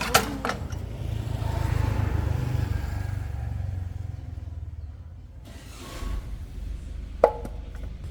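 A motor vehicle engine running with a low, even rumble. It swells louder about a second in and fades again by about four seconds. A brief chirp comes near the end.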